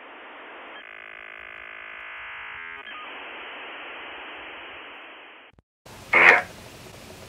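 Static hiss from the Necrophonic spirit-box app, thin and narrow as through a phone speaker, with a stretch of buzzy steady tones about a second in. It cuts off suddenly, and a brief loud sound follows near the end.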